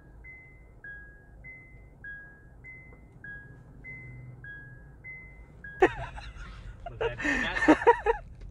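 An electronic beeper alternating a high and a low note, about one high-low pair a second, over a low steady hum; it stops about six seconds in with a sharp knock, and voices follow near the end.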